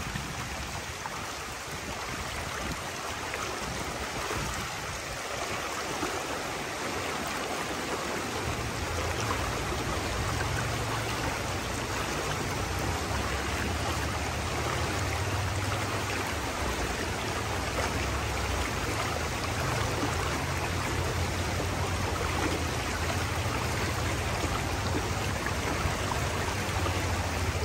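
Creek water flowing steadily over rocks, an even rushing hiss. From about eight seconds in, a low rumble joins underneath.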